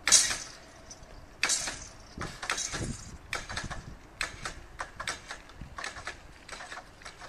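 Level crossing barrier boom with its hanging lattice skirt coming down onto its rest with a sharp metallic clank. This is followed by a second clank and then irregular light metallic clicks and clatter for several seconds.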